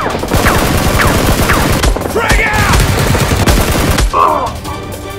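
Rapid automatic gunfire: a dense run of shots for about four seconds that then stops.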